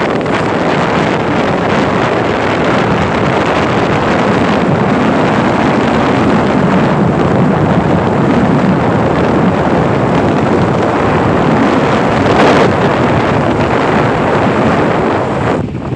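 Steady rush of wind on the microphone from a moving vehicle, with the vehicle's road and running noise underneath.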